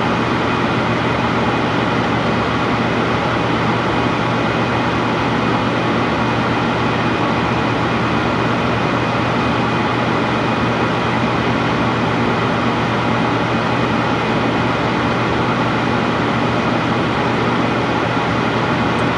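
Propane furnace running steadily: an even rushing noise from the burners and blower over a low hum.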